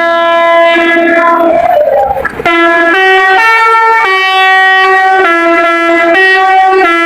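Bus telolet horn, a Basuri multi-tone musical air horn, playing a tune of held notes that step up and down in pitch, with a brief break about two seconds in.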